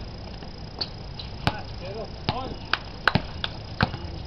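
A basketball bouncing on an outdoor concrete court: irregular sharp thuds, several close together about three seconds in.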